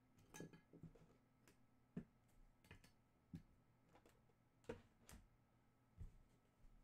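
Near silence broken by about a dozen faint, irregular clicks and taps of trading cards being handled and set down one after another.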